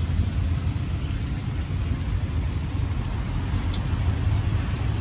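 Street traffic noise: a steady low rumble of passing vehicles, with a few faint ticks.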